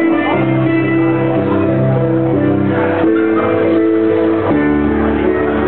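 Piano music: a melody over held chords, played steadily.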